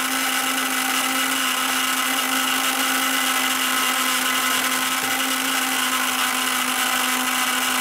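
Toy roto painting (spin-art) machine's small electric motor running steadily, spinning the paint plate: an even, unchanging whir with a constant hum.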